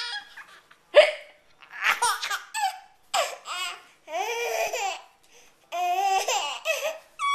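A woman hiccuping several times, each sharp hiccup followed by a baby's high-pitched laughter.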